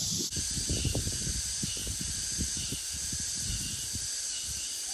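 Steady high-pitched drone of a summer insect chorus, with irregular low rumbling underneath.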